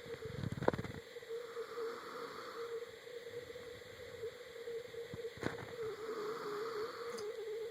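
Sleeping child breathing with soft snores every few seconds, over a steady high-pitched hum. Two sharp clicks, one just under a second in and one past the middle.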